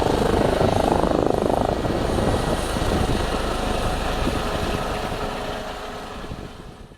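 Airbus H145M helicopter with its rotor beating loudly over the turbine noise, fading over the last couple of seconds.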